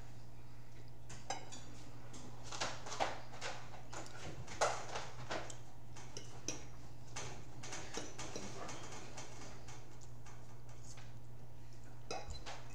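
Eating sounds at a table: forks clicking and scraping on plates, and chewing, in short scattered sounds over a steady low hum.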